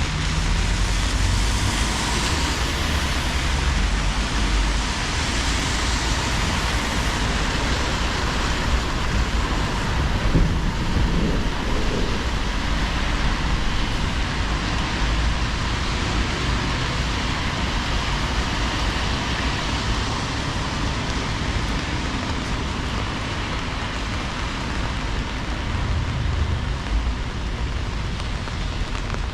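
Steady heavy rain falling, with a low rumble in the first few seconds and again near the end.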